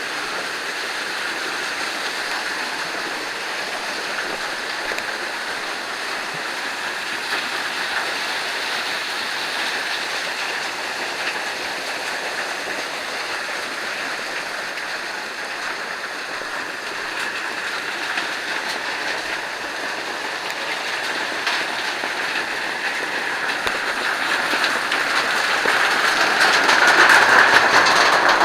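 Steady rush of a waterfall, water pouring continuously, growing louder over the last few seconds.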